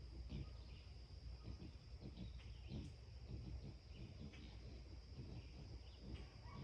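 Faint dawn farm ambience: a steady high insect trill with scattered short bird chirps over a low rumble.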